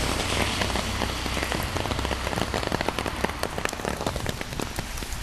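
Rain falling close to the microphone: a dense, irregular crackle of many small drop ticks over a steady low rumble.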